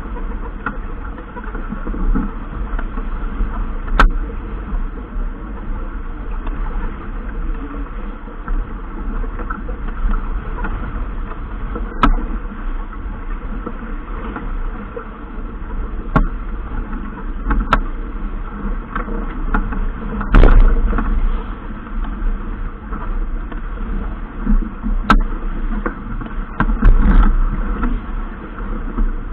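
Steady rushing noise of a boat under way on the water, with wind on the microphone, broken by scattered sharp knocks; the loudest knock comes about twenty seconds in.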